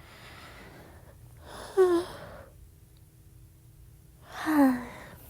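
A woman's two sleepy sighs: breathy exhales with a voiced tone that slides down in pitch, the first about two seconds in and the second near the end.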